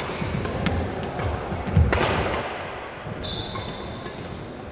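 Badminton doubles rally on a wooden hall floor: footfalls thudding as players move and lunge, and sharp cracks of rackets striking the shuttlecock, the loudest about two seconds in. A steady high-pitched squeal sounds over the last second and a half.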